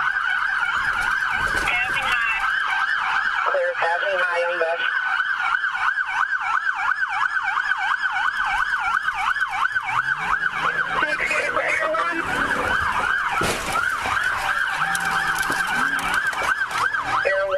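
Police car siren wailing in a fast, continuous rising-and-falling yelp, heard from inside a patrol car during a pursuit.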